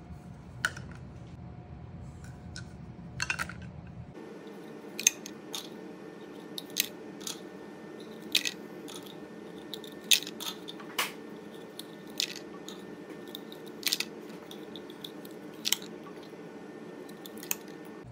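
Dry manicotti pasta shells with hot dogs inside tapping and clicking against one another and against a glass baking dish as they are set down, about fifteen light, sharp taps at irregular spacing over a low steady hum.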